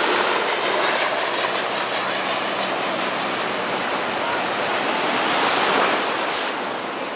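Surf breaking and washing through the shallows in a steady rush, with the engine and rotor hum of a helicopter faintly underneath in the first few seconds as it flies away.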